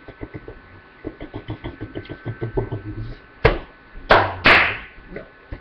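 A quick run of soft knocks, then three loud whacks close together, from hands striking near the webcam's microphone during fast signing.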